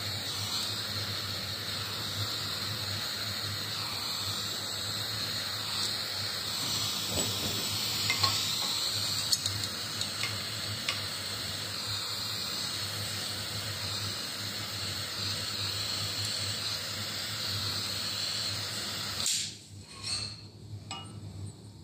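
Small butane torch burning with a steady hiss as it heats solder-seal connectors, melting the solder inside and shrinking the sleeves. The hiss cuts off suddenly about 19 seconds in when the flame is shut off.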